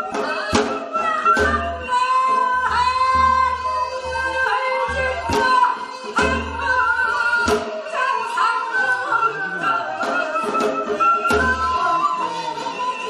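Women singing a Korean folk song (minyo) in long, wavering held notes, with sharp percussion strikes about once a second.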